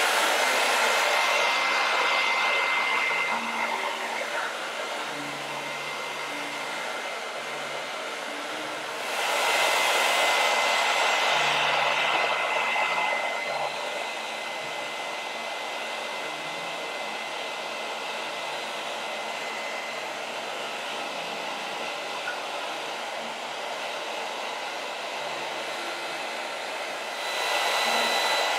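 Hand-held hair dryer blowing steadily with a thin high whine, swelling louder three times: at the start, about nine seconds in, and near the end.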